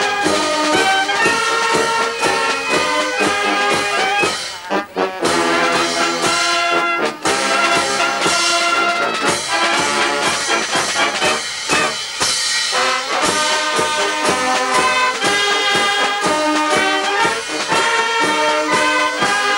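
Wind band of clarinets, flutes and brass such as trumpets playing a tune together, with brief breaks between phrases around five and seven seconds in.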